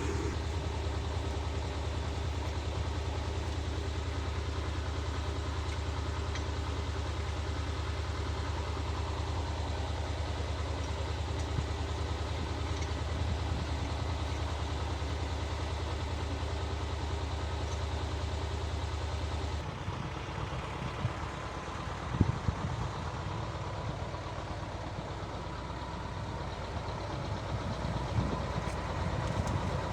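Tractor engine idling steadily while it warms up. About twenty seconds in the sound changes abruptly, followed by a couple of short knocks.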